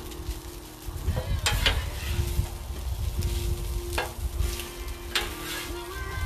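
Food sizzling on a Blackstone flat-top griddle, over a steady low rumble, with a few sharp clicks of the cooking about a second and a half in, at four seconds and near the end.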